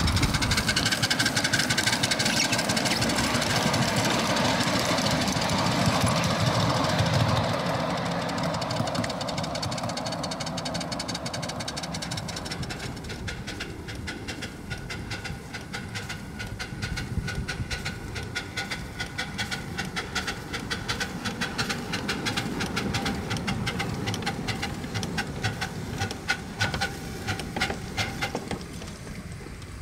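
A 7.5-inch gauge live steam locomotive and its train running on a riding track: a loud rolling rumble of wheels on rail as the train passes close, fading over the first several seconds, then a quick steady rhythm of beats that grows louder as the locomotive comes nearer.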